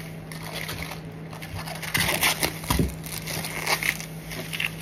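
Crinkling and rustling of plastic packaging being handled, with a few light knocks, over a steady low hum.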